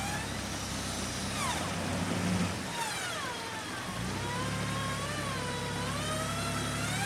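Off-road vehicle engine running steadily, cutting out briefly midway, with a high whine over it that slides up and down in pitch.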